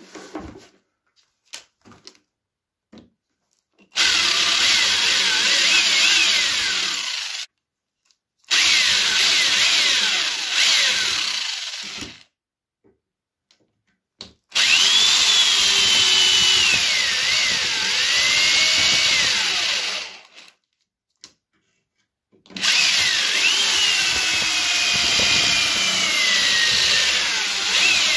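Corded electric drill drilling out metal rivets in four runs of a few seconds each, its whine dipping and rising in pitch as the bit bites and frees up.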